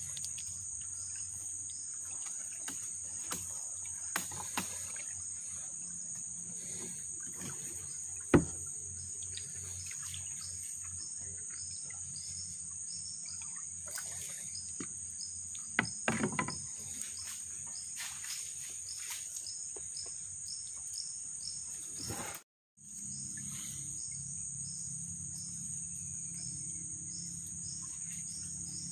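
Steady high-pitched insect chorus of crickets, with faint repeating chirps beneath it. A few sharp knocks cut through, the loudest about eight seconds in and a short cluster near the middle. The sound drops out briefly about three quarters of the way through.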